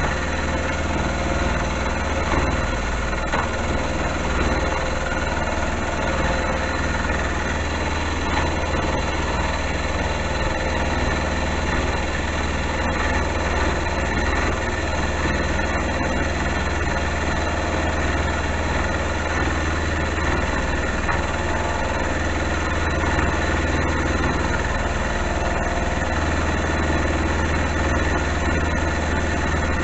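Small metalworking lathe running steadily at about 1150 RPM under power feed, its tool taking a 1 mm cut in steel: a constant machine hum with several steady tones.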